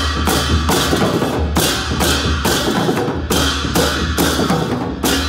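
Newar dhime drums and large brass hand cymbals played together, loud: the cymbals crash about twice a second over a steady, driving drum beat.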